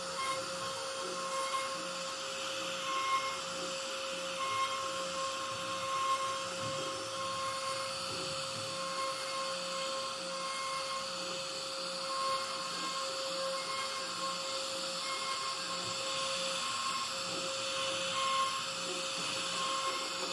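CNC router carving wood: the spindle runs with a steady whine over a hiss of cutting, while higher motor tones from the axis drives come and go in short spurts as the bit moves.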